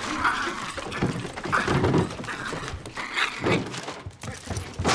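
Thumps, knocks and scuffling as a boy grabs at a small dog on a desk, the dog making noises of its own amid the struggle.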